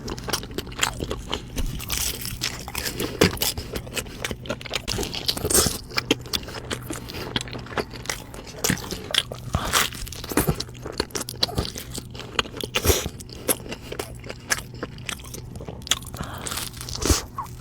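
Close-miked eating: crisp bites and crunchy chewing, many sharp crackles and clicks at an uneven pace.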